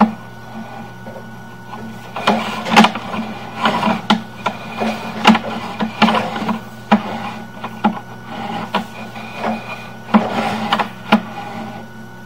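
Sewer inspection camera's push cable being worked back and forth through the pipe: irregular clicks, knocks and rattling from the cable and camera head, over a steady electrical hum from the camera system.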